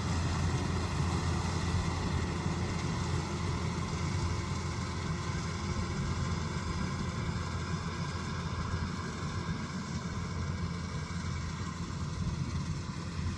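Kubota DC-108X combine harvester running steadily, its engine note holding even.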